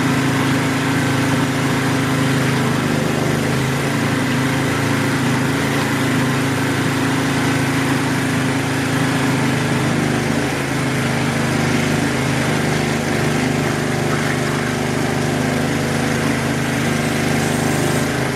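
Small gasoline engine of a 2.5-inch Proline gold dredge running steadily at a constant speed, powering the dredge pump and hookah.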